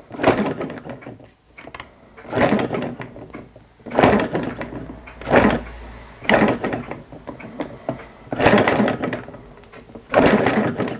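Small four-stroke hit-and-miss model engine being cranked by hand: about seven separate spins of its flywheel, one every second or two, each a short burst of mechanical whirring and clatter as the engine turns over without yet running on.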